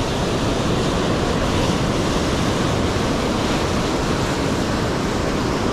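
Sea surf rushing and washing in a steady noise, with wind buffeting the microphone.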